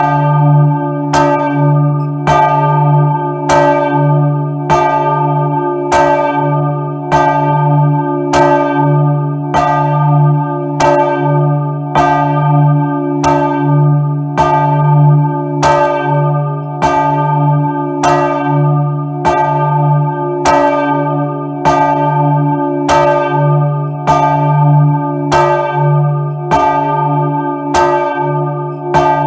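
Large church bell Maria swung by hand with a rope, its clapper striking about once a second, heard up close in the belfry. Each loud clang rings on into the next over a deep, steady hum.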